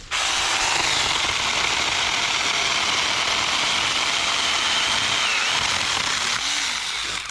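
Small battery-powered mini chainsaw (a Saker) running at full speed and cutting through brush and branches, a steady high whine that starts and stops abruptly and sags briefly about five seconds in.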